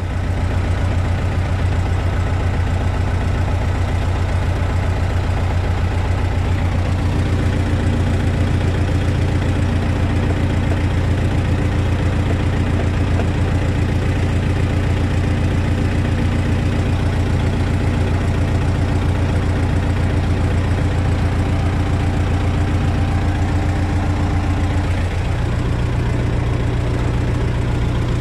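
T-40 tractor's diesel engine idling steadily with an even low pulse, picking up slightly near the end.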